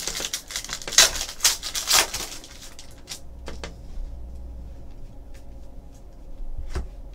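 Foil wrapper of a Panini Donruss basketball card pack crinkling and tearing open by hand for about the first three seconds. After that come only a few faint soft ticks as the cards are flipped through.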